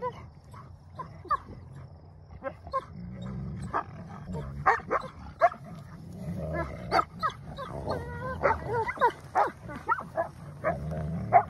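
Two wolfdog puppies play-fighting and tugging a rope toy, giving many short yips and whining calls, busier and louder in the second half.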